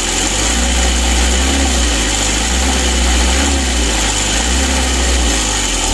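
Mitsubishi L300's four-cylinder diesel engine running with a low drone that strengthens about half a second in and eases near the end. The mechanic takes the drone for a very loose timing belt moving too much and touching its cover.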